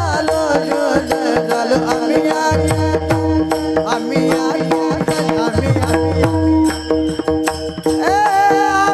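Marathi devotional singing (bhajan gayan): a male singer's melodic, ornamented line over a steady held drone and fast hand-drum strokes. The voice eases off for a few seconds in the middle while the drone and drums carry on, then comes back in strongly near the end.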